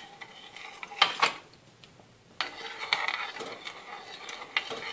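Orange peel being stirred in sugar syrup in a small saucepan: two sharp knocks of the utensil against the pan about a second in, then lighter scraping and clinking.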